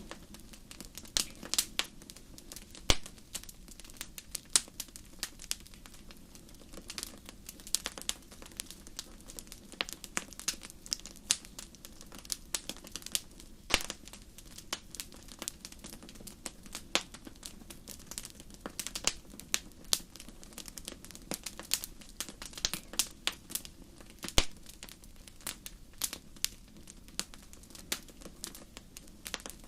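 Wood fire crackling: irregular sharp pops and snaps, a few of them louder, over a faint steady low background.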